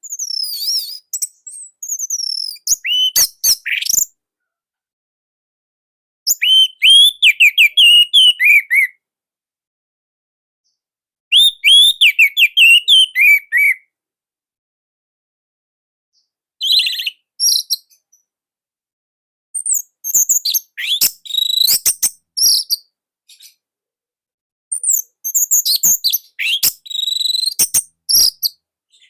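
Orange-headed thrush singing loud, tightly packed phrases of rapid, varied whistles and sharp notes, about six bursts each lasting one to three seconds, with short pauses of silence between them.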